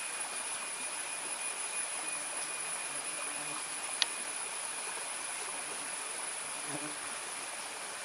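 A steady, high insect drone over a constant background hiss, with one sharp click about halfway through.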